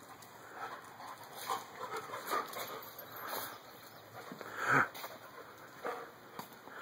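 Dogs at play: a string of short dog noises, roughly one a second, the loudest about two thirds of the way through.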